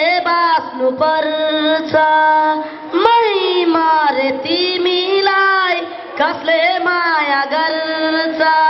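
A young boy singing a Nepali song into a handheld microphone, holding long notes that slide up and down in pitch.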